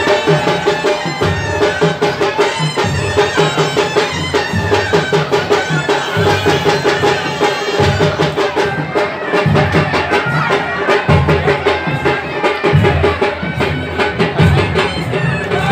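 Traditional procession music played loud: reedy wind instruments carry a melody over a steady drone, with fast drumming throughout.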